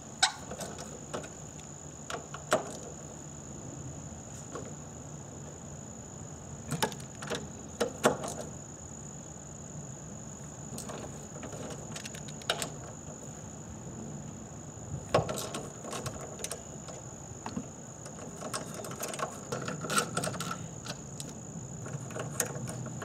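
Socket ratchet on the 12 mm strut-bar nuts: scattered metal clicks and clinks of the ratchet and socket, with a quick run of ratchet clicks near the end.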